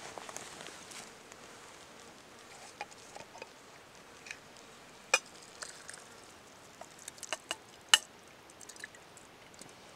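Glass canning jar tapping and clinking against the rim of a stainless steel pot as canned elk meat is shaken out of it: scattered sharp taps, the loudest about five and eight seconds in.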